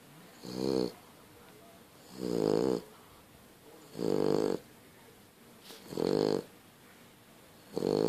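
A French bulldog snoring loudly in deep sleep, a rasping snore about every two seconds, typical of the breed's short, flat-faced airway.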